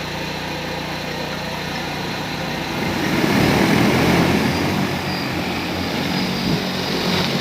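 Agricultural multirotor spreading drone powering up and lifting off: a steady rotor hum that grows louder about three seconds in and stays loud.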